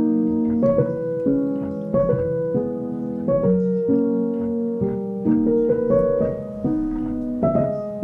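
Background piano music with notes and chords changing every half second to a second.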